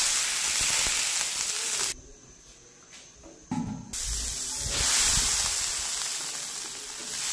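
Water poured into a hot wok hissing and sizzling loudly for about two seconds. After a quieter stretch, a steady hiss of water boiling hard in the wok.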